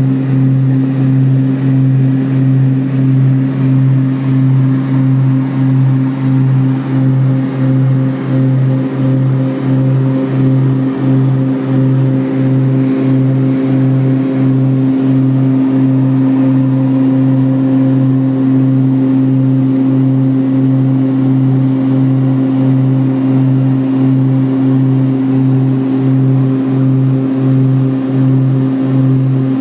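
Cabin drone of a Beechcraft King Air 200's twin turboprop engines and propellers in flight, a steady low hum that swells and fades in a regular beat a little faster than once a second, the sign of the two propellers turning slightly out of sync.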